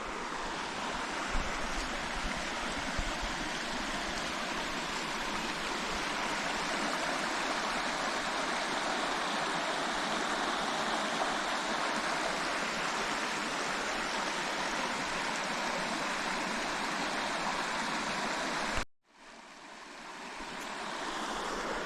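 Stream water rushing steadily. The sound cuts off abruptly near the end, then fades back in.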